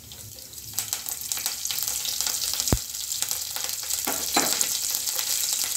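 Curry leaves and fresh coriander sizzling and spluttering in hot oil with cumin and mustard seeds in a steel pan, the tempering stage of an Indian curry. The crackle builds within the first second and then keeps going steadily. A single sharp knock comes near the middle.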